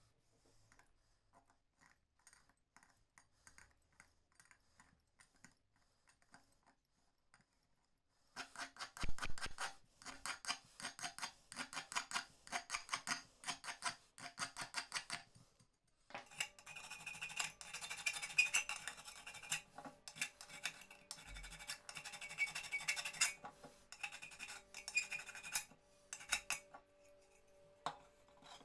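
A hand tool scratches and scrapes rapidly on the metal parts of a small copper camping stove, after a few faint taps. The scraping starts about eight seconds in, stops briefly around the middle, then goes on more steadily and rougher until near the end.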